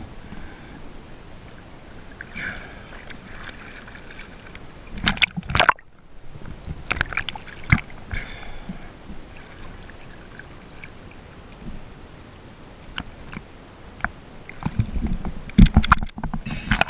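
Water sloshing and gurgling close to the microphone, with scattered clicks and knocks. There are two louder, splashy bursts: one about five seconds in that cuts off sharply, and one near the end.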